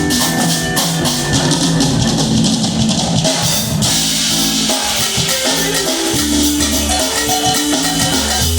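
A live band playing an instrumental groove with drums and percussion during a sound check.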